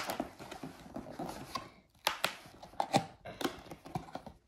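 A sharp tool jabbing and scraping at the packing tape on a cardboard box: an irregular run of sharp taps and scrapes, louder in the second half.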